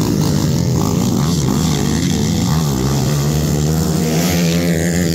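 Dirt-bike racing motorcycles revving up and down through the track's curves, their engine pitch rising and falling, over a steady low engine drone.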